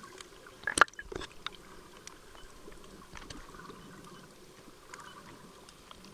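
Underwater sound on a snorkelling camera: a steady wash of water, with two sharp clicks or knocks about a second in and scattered faint ticks after.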